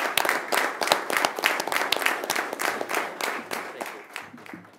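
Small audience applauding, dense uneven hand-clapping that fades away over the last second or so.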